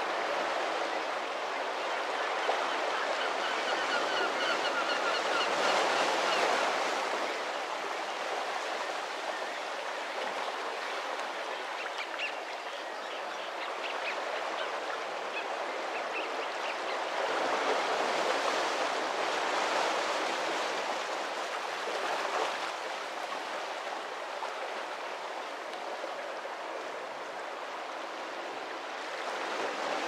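Sea waves washing on a shore, rising and falling in slow swells. A bird gives a short, nasal call a few seconds in, with fainter calls later.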